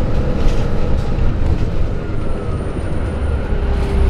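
The Cummins ISM inline-six diesel and Allison B500R automatic transmission of a 2000 Neoplan AN460A articulated bus running steadily, a continuous low engine drone with faint whining tones over it.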